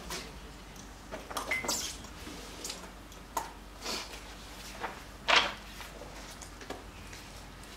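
Scattered brief knocks, clicks and rustles of things being handled, about half a dozen, the loudest a little past halfway.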